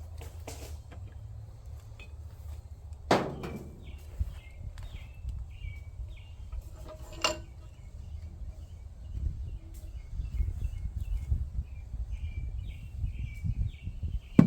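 Outdoor ambience: a low rumble like wind on the microphone, a small bird chirping over and over in short falling notes, and a sharp knock about three seconds in and again near the end.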